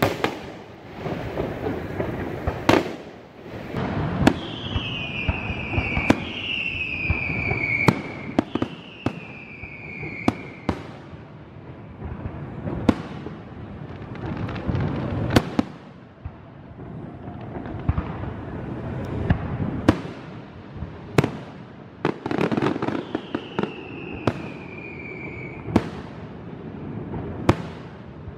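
Aerial fireworks display: shell bursts booming every second or two, each trailing off. There are falling whistles from whistling fireworks, three in a row about four seconds in and another near the end.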